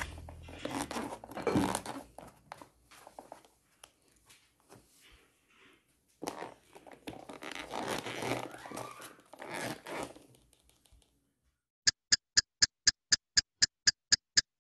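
Fingers crumbling and scattering grated cheese over a plastic tub: dry, irregular rustling and crackling in two spells. Near the end comes a run of short, even clicks, about four a second.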